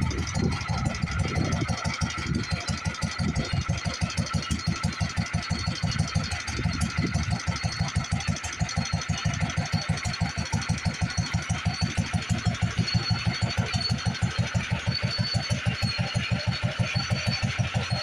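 International Harvester 3 to 5 hp LA single-cylinder engine running steadily at a slow display speed, its regular beats driving a belted lineshaft and machine tools. A faint, steady high whine comes in about halfway through.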